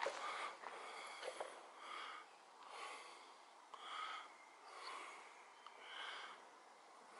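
Faint, close breathing of the person holding the camera, about one breath a second, with a few light steps on the gritty, littered floor in the first second or so.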